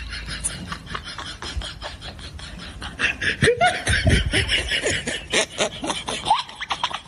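Laughter: rapid, breathy snickering, louder from about three seconds in, with a few short rising squeaks.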